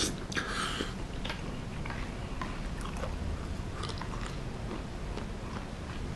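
A person eating soup curry: a short noisy slurp from a wooden spoon, then chewing with small scattered clicks.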